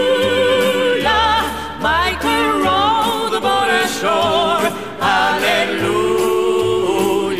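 Folk song playing: voices singing held, vibrato-laden lines over instrumental accompaniment with a low bass line.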